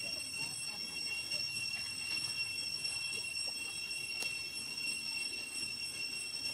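A steady high-pitched drone made of several thin tones, unchanging throughout, with a single sharp click about four seconds in.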